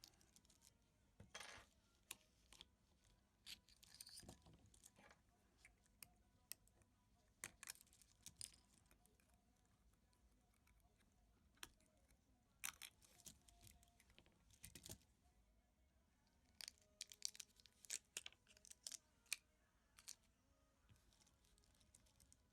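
Faint small clicks, taps and short scrapes of a wristwatch and small tools being handled during a battery change, with a run of sharper clicks about three quarters through.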